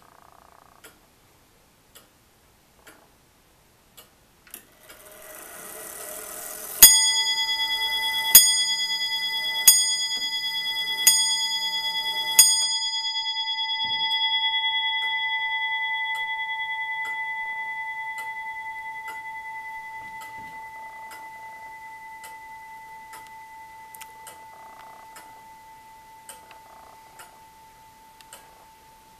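Antique 30-hour longcase clock (1690 William Clement, birdcage movement with anchor escapement) striking the hour: the strike train whirs into motion, then the bell on top of the movement is struck five times about a second and a half apart. The bell keeps ringing and slowly fades while the clock ticks steadily, about once a second.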